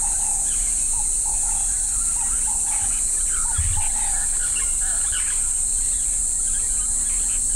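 Steady high-pitched insect drone, as of crickets or cicadas, with many short chirping calls scattered through it and a single low thump about three and a half seconds in.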